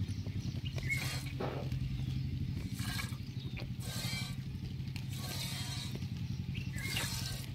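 Goat's milk squirting by hand into a steel pot, short hissing spurts every second or so, over the steady low drone of a motor running.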